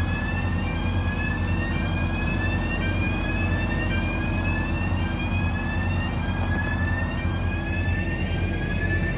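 Large crawler crane's diesel engine running steadily with a low drone. Over it, an electronic warning tone rises in pitch again and again, each sweep lasting about a second and repeating roughly every second and a half.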